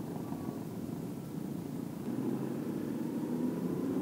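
Motorcycle engine running under a steady rushing noise while riding, its tone growing clearer and rising slightly near the end.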